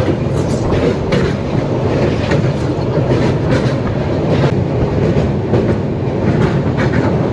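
Passenger train running at speed over the Kolaghat rail bridge: a steady rumble with irregular clacks of the wheels over the rail joints.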